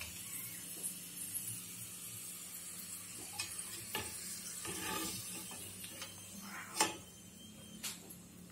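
Potato fingers sizzling steadily in hot oil during their first fry, while a perforated steel skimmer scrapes in the pan and clinks a few times against the pan and a steel plate as the fries are lifted out.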